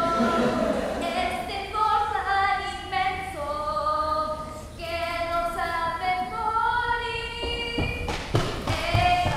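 A girl singing a slow melody solo, each note held for about half a second to a second, with a few dull thumps near the end.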